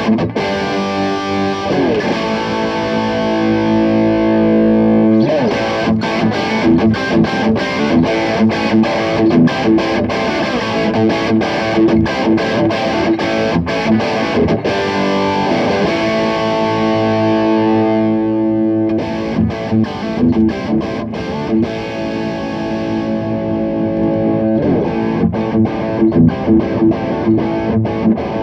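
Electric guitar, a Fender Stratocaster on its bridge humbucker, played through a Fire Custom Shop Ultimate Distortion pedal into a Peavey Bandit 112 amp, giving a heavily distorted tone. Some chords are held and left to ring, and between them come passages of quick, chugging rhythmic picking.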